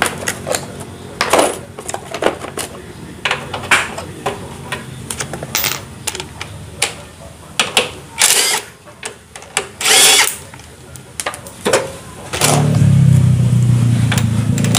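Cordless impact wrench loosening the engine mounting bolts of a Honda Astrea Grand motorcycle. Scattered metal clicks and knocks come first, then two short bursts of the wrench, then a loud steady run of hammering that starts near the end and keeps going.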